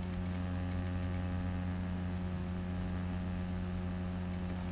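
Steady low electrical hum, with a few faint computer-mouse clicks in about the first second.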